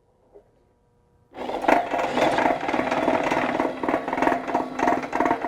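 Drill-driven Bluedog BWS-38-MF-DA wire stripping machine running a white wire about a quarter inch thick through in one pass, its blade slitting the insulation. It starts a little over a second in and runs steadily, a constant motor hum with rapid clicking.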